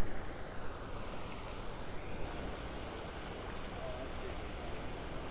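Steady rush of water churning through a dam spillway, with some wind on the microphone. A brief sharp click right at the start.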